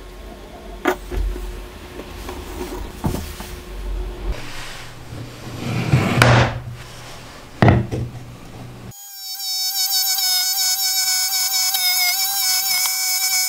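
Small plywood parts knocked and set down on a workbench, a few sharp clicks and knocks. About nine seconds in, a Ryobi MTR-42 trim router comes in suddenly with a steady high whine as a small part is cut along a template.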